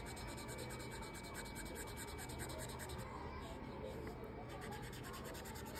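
Broad-tip felt marker scribbling on paper, colouring in an area with quick back-and-forth strokes. It stops for about a second a little past halfway, then goes on.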